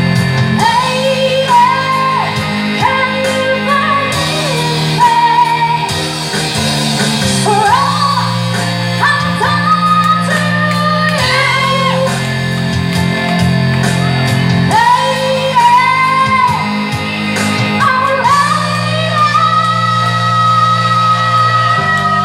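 Live rock band playing a power ballad in a large hall, with guitars and a steady low backing under long, wavering high notes that bend and are held. It is a sung wail or a lead guitar line; the tagger leans to singing.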